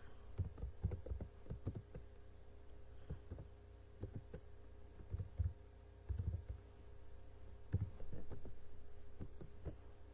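Computer keyboard keys tapped in short irregular runs as a word is typed, over a steady low electrical hum.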